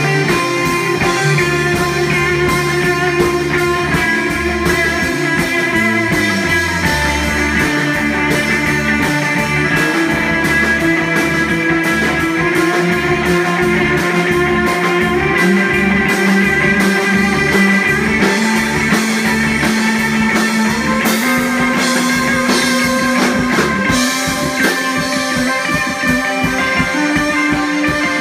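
Rock band playing an instrumental passage: guitar over a bass line and drum kit with a steady beat.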